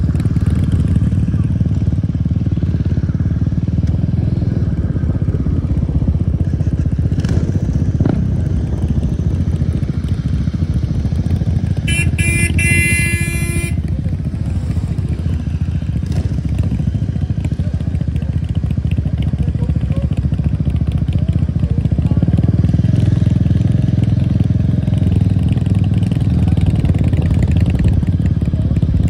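Motorcycle engine running close by as the bike rolls slowly at low revs, a steady rumble throughout. A short, high, horn-like tone sounds for about two seconds around the middle.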